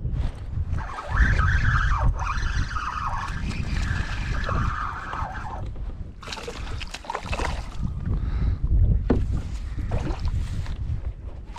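Water splashing and sloshing around a kayak, in a few short bursts in the second half, over wind buffeting the microphone. A wavering high whine runs through the first half.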